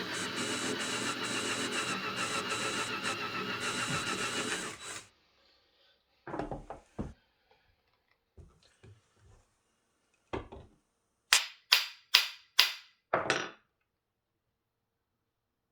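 A drill runs steadily at one pitch while boring out a stuck steel tang screw, and stops about five seconds in. Scattered knocks follow, then near the end five sharp metallic strikes in quick succession, a little under half a second apart.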